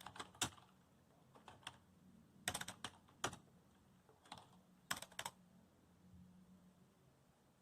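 Computer keyboard keys clicking in short irregular bursts of touch-typing, stopping about five and a half seconds in. A faint low hum lies under it.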